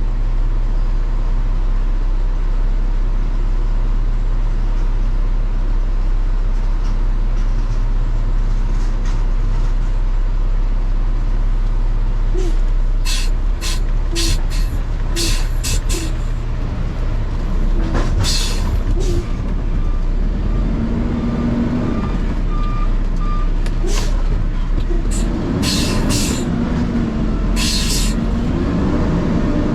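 Garbage truck's diesel engine running steadily, with several short air-brake hisses in the second half. Near the end a brief run of beeps sounds and the engine note rises and falls.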